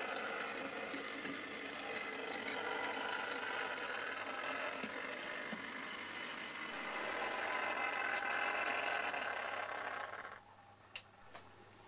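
Bachmann Class 03 model diesel shunter running along the track: a steady whirr from its motor and wheels with occasional sharp clicks, cutting off suddenly as it stops about ten seconds in.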